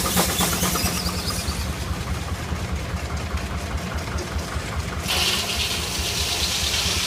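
Steam engine driving a sawmill, running steadily with a fast low beat. A hiss joins in about five seconds in.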